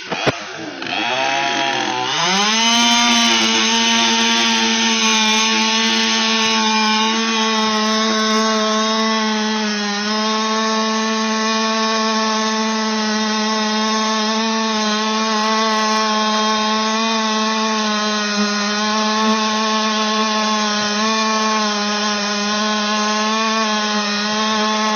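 Stihl MS 200T two-stroke top-handle chainsaw cutting into a black locust trunk. It is throttled up about two seconds in and then held at a steady high rev under load, with small dips in pitch as the chain bites into the wood.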